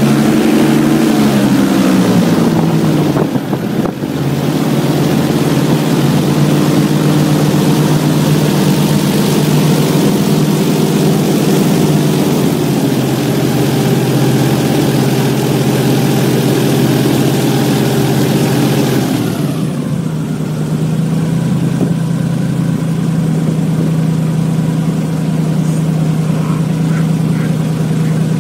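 Airboat's engine and large air propeller running loud under way. The engine note falls in the first two seconds; about two-thirds of the way through the rushing noise drops away, leaving a steadier engine drone.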